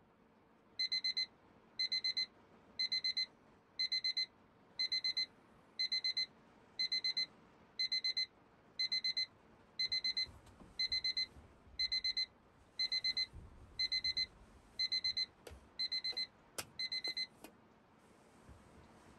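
Electronic alarm beeping in quick groups of four, about once a second. Near the end there are a few sharp clicks and some rustling, and the beeping stops.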